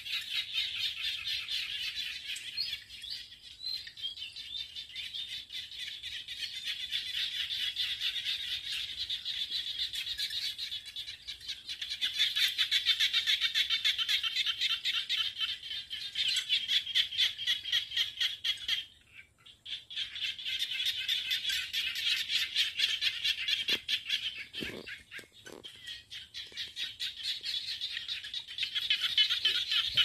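A dense chorus of green frogs calling in rapid, high-pitched pulses. It thins and cuts out for about a second roughly two-thirds of the way through, then picks up again.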